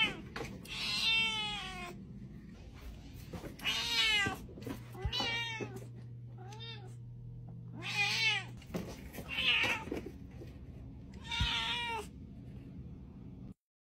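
Cat meowing repeatedly, about seven calls, each rising and falling in pitch. A faint low hum runs under the middle calls.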